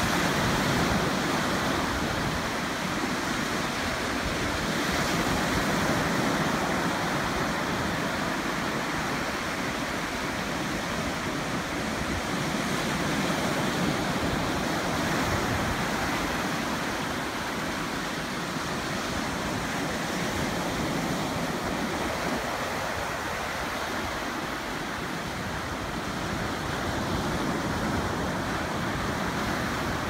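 Small ocean waves breaking and washing up on the shore in a steady surf, swelling and easing every several seconds.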